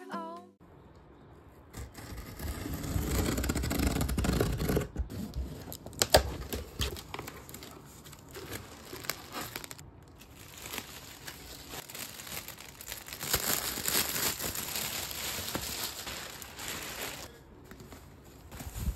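Bubble wrap and plastic packaging crinkling and tearing as a parcel is unwrapped by hand, with many sharp crackles and clicks.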